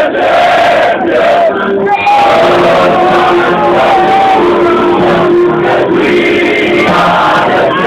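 A large crowd of football fans singing together loudly, with music.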